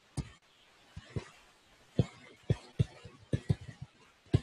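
Stylus writing on a tablet screen: a string of about a dozen short, irregular taps and knocks as the pen strikes and lifts off the glass.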